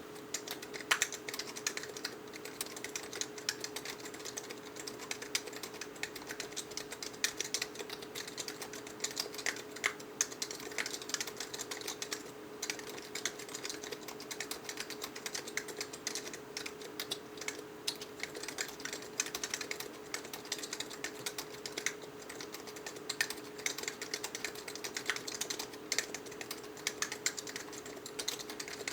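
Continuous typing on a mechanical keyboard with Matias quiet non-click Alps-style switches: a steady stream of irregular, soft key clacks, over a faint steady hum.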